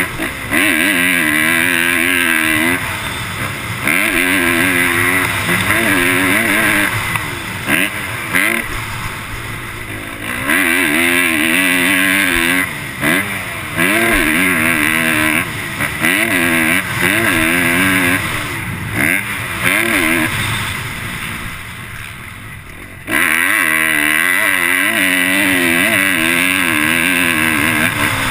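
Motocross bike engine at racing pace, heard from the rider's helmet camera: hard full-throttle pulls rising in pitch, broken by brief roll-offs every few seconds. About two-thirds of the way through the engine eases off for a couple of seconds, then pulls hard again.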